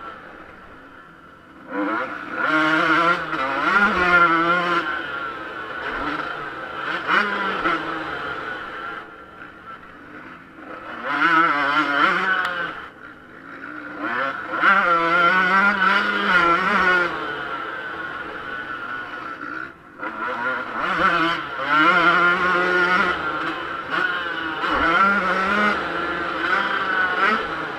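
Yamaha YZ125 two-stroke motocross engine heard from the rider's helmet, revving up and dropping back again and again as the throttle is opened and shut, with a few brief dips in revs between long loud pulls.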